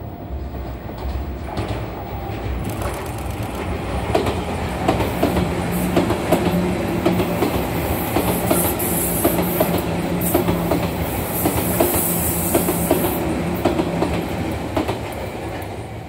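Sotetsu 8000 series electric commuter train passing at speed. Its wheels click rapidly over the rail joints over a steady low hum. The sound builds from about two seconds in and fades near the end as the train goes by.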